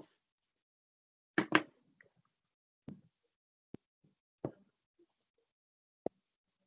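A few short knocks and clicks come through a video-call microphone, with dead silence between them: a double knock about a second and a half in, then single clicks spaced roughly a second apart.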